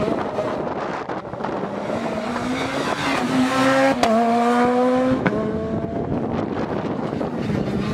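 Rally car engine accelerating hard, its pitch climbing, then a sharp break and drop in pitch about four seconds in as it shifts up, climbing again and cutting off a second later.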